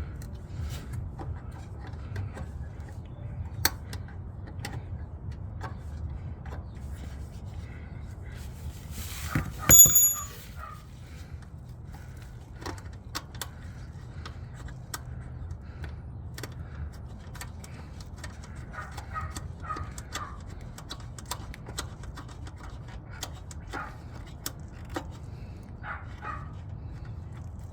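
Metal hand tools clicking, rattling and scraping as a wrench works a heat-shield nut under the car. About ten seconds in there is one loud, ringing metal clank.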